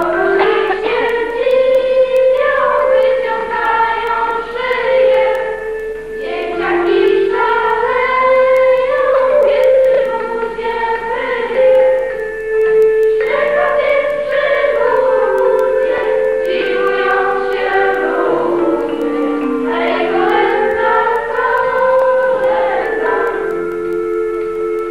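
A group of voices singing together over a steady instrumental accompaniment, in phrases of several seconds with short breaks between them.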